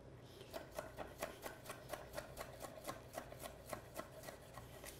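Kitchen knife julienning bell peppers on a wooden cutting board: quick, even knife strokes tapping the board about four times a second, faint.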